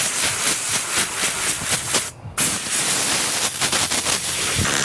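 Compressed air from an air compressor's blowgun hissing as it blows out an engine air filter. There are two long blasts with a short break about two seconds in.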